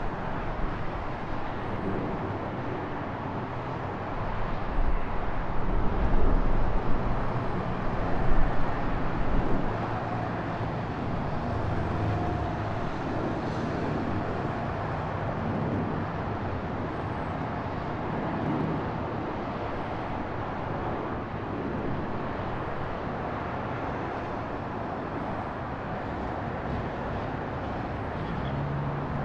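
Steady city traffic noise with wind rumbling on the microphone, recorded from a moving bicycle. A louder low rumble swells about five seconds in and lasts several seconds.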